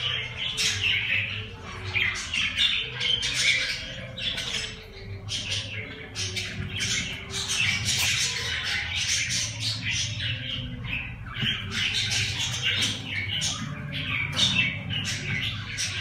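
A group of cockatiel chicks about 24 days old calling continuously with rapid, harsh, rasping squawks, overlapping one another.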